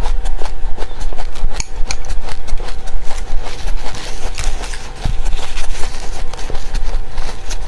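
Seeds being chewed close to the microphone: rapid, irregular crunching and crackling, loud and continuous.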